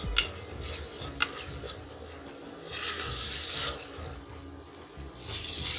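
Chopped tomatoes frying in ghee in an aluminium pressure cooker, sizzling in spells that come and go, while a wooden spatula scrapes and knocks against the pot as they are stirred and cooked down.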